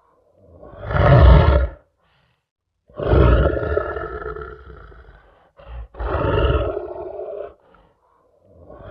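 Lion roaring repeatedly: four deep, rough roars, each a second or two long, with brief silences between them and a short grunt before the third; the last roar begins near the end.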